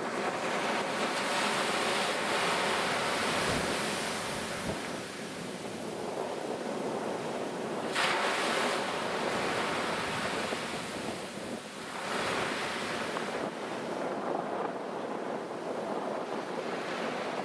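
Sea surf washing and breaking over shoreline rocks, with wind buffeting the microphone. The noise swells and eases with the waves, with a brief louder surge about eight seconds in.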